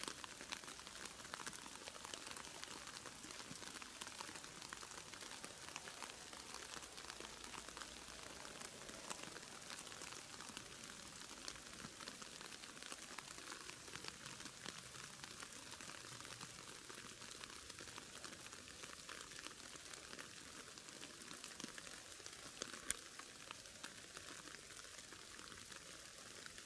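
Faint, dense crackling of dry grass and straw stalks brushing against a camera as it is moved slowly through them, with one sharper click near the end.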